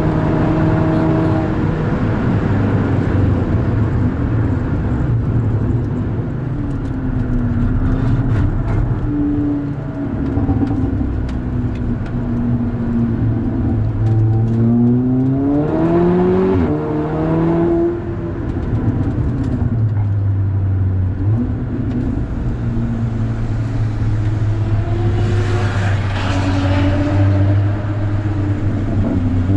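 Volkswagen Golf 6R's turbocharged four-cylinder engine being driven hard. The revs climb and fall back through gear changes twice, with steadier running between.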